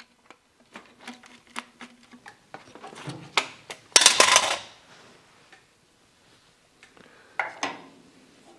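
Metal tools and parts being handled: a run of light metallic clicks and clinks, with a louder metal clatter about four seconds in and a shorter one near the end.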